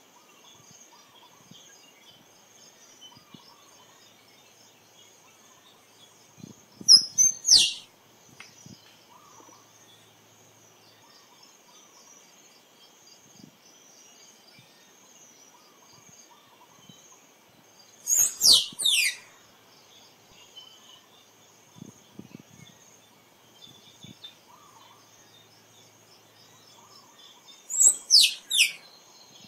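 Squirrel calling in three short bouts about ten seconds apart, each a quick run of sharp, high chirps that sweep steeply downward, over a steady high drone of insects.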